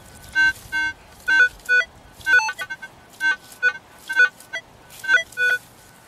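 Metal detector beeping as its search coil is swung back and forth over a dug hole, about a dozen short tones at mixed high and low pitches, mostly in pairs. It is responding to a buried metal target.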